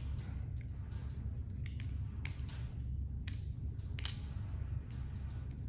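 Dobruski No. 298 balisong (butterfly knife) being flipped: its handles clicking and clacking against each other and the blade at irregular intervals, over a low steady hum.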